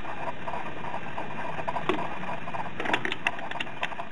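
Ratchet head of a torque wrench clicking as it tightens a lug nut on a steel wheel: a few scattered sharp clicks, bunched together about three seconds in, over a steady background hiss.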